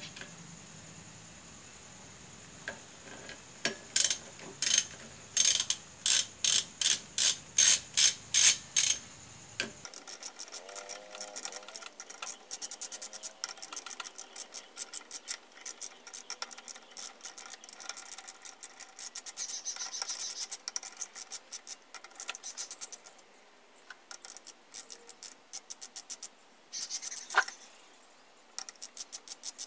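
Socket ratchet wrench clicking on the clutch pressure-plate bolts: first a run of loud separate clicks at about two a second, then fast ratcheting clicks in repeated runs.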